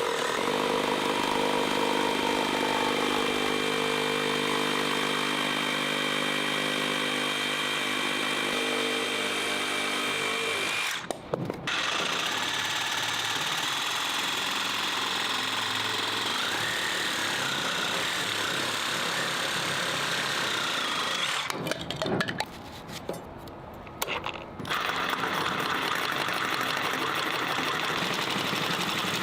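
Makita JR001G 40V cordless brushless reciprocating saw running steadily. It dips briefly about eleven seconds in and goes quieter for a couple of seconds past the twenty-two-second mark, then runs on.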